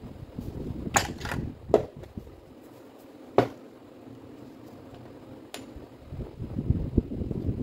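Metal parts of a disassembled Makita M8700 rotary hammer being handled on a workbench: a few sharp clinks and knocks as parts are set down and picked up, the loudest in the first two seconds and one more about three and a half seconds in. Duller rustling handling noise follows near the end.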